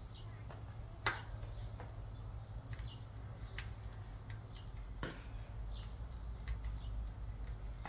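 Scattered metallic clicks and ticks of a screwdriver tightening a worm-drive hose clamp on a rubber breather hose, the sharpest about a second in. Under them run a steady low hum and a small bird chirping over and over.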